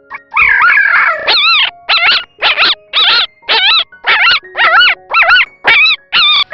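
A dog giving high-pitched whining yelps: one longer call, then a run of about a dozen short yelps, roughly two a second, each wavering up and down in pitch.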